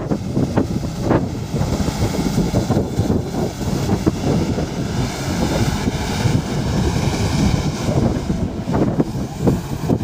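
Excavator diesel engines running steadily, with wind on the microphone.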